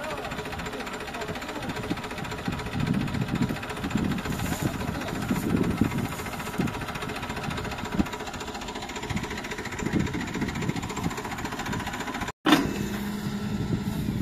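The Hitachi EX120 excavator's diesel engine running at idle with a knocking clatter and irregular low pulses. Near the end the sound drops out briefly, then continues as a steadier hum.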